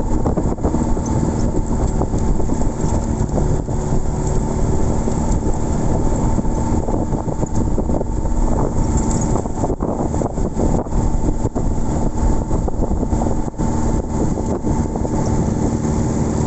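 A motor vehicle's engine running steadily while under way, with a steady hum, wind on the microphone and occasional knocks.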